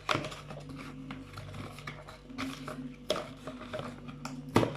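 Plastic bathroom accessories being handled, giving a few sharp knocks and clicks: the loudest just after the start, another about three seconds in and one near the end, over a steady low hum.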